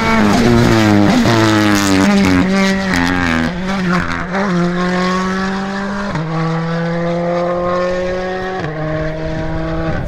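Hyundai i20 N Rally2 rally car's turbocharged four-cylinder engine: quick downshifts under braking with sharp pops and crackles over the first few seconds, then it accelerates away up through the gears, the pitch climbing in each gear and dropping at two upshifts, slowly fading as it pulls away.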